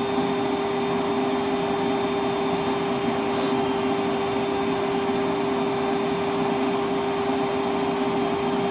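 Milwaukee M12 cordless 12-volt 1.6-gallon wet/dry vacuum (0960-20) running steadily on high speed with its hose lying open and nothing being sucked up, its motor giving a steady whine at an even pitch.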